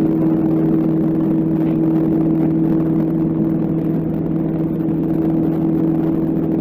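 Steady drone of a light single-engine propeller aircraft's engine and propeller, heard inside the cockpit while climbing. It is an even, unchanging hum.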